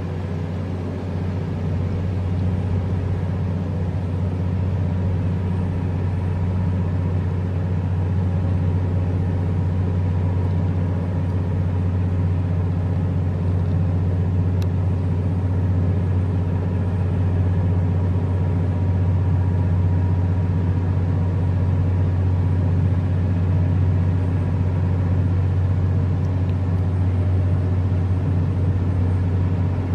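A boat's engine running at a steady low drone, its pitch unchanging, that grows slightly louder over the first couple of seconds.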